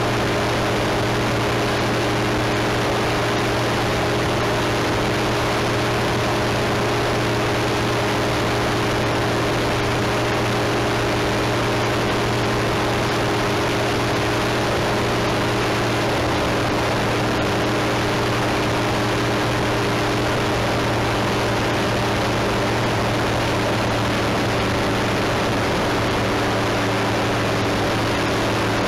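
A small propeller aircraft's engine droning at steady revs in flight, with a constant rush of air noise. Nothing changes in level or pitch throughout.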